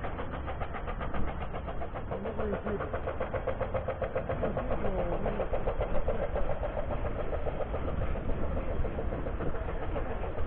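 A vehicle engine running with a rapid, even pulsing, amid faint voices and street noise.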